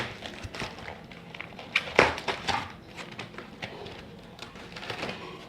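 Cardboard box packaging being cut open and handled: scattered clicks, scrapes and rustles of tape and cardboard, with a sharper crack about two seconds in.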